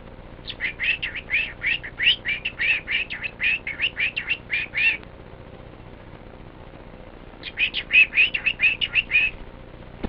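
Cockatiel chirping in rapid repeated notes, about four or five a second, in two runs with a pause of a couple of seconds between them.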